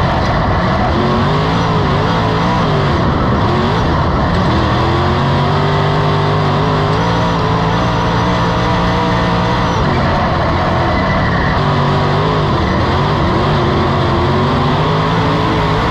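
Dirt modified race car's V8 engine heard from inside the cockpit at racing speed. Its note drops and climbs again twice as the driver lifts for the turns and gets back on the throttle, holding steady in between.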